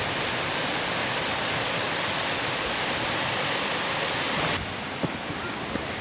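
Steady rushing of a waterfall, the Cascata do Arado, an even hiss of falling water; it drops a little in level about four and a half seconds in.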